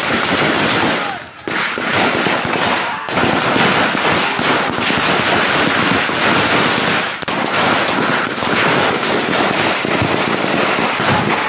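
Heavy small-arms gunfire: a near-continuous crackle of many shots in quick succession, with brief lulls about one and three seconds in.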